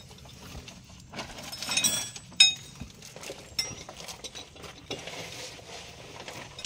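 Light metallic clinks and rattles of metal parts or tools, with one sharp, ringing metal clink about two and a half seconds in.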